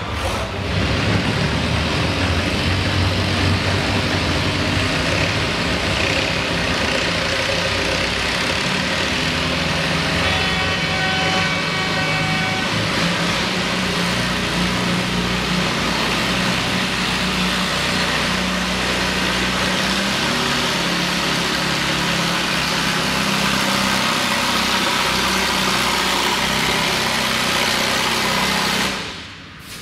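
Farmall M tractor's four-cylinder engine running hard under steady load, dragging a weight-transfer pulling sled.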